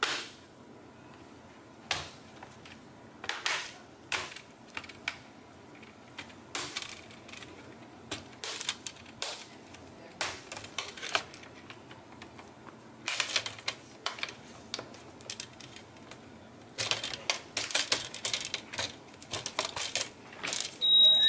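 Plastic LCD bezel of a Toshiba P750 laptop being pried off by hand: runs of sharp snapping clicks as its clips pop loose, in several clusters with quiet gaps between.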